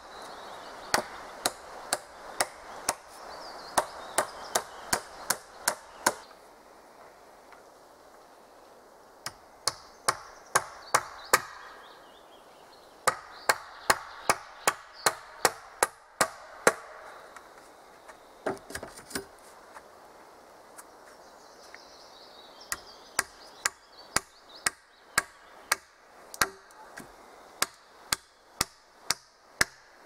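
Runs of sharp blows of a hand tool on wood, about two a second, in several bursts with short pauses between them.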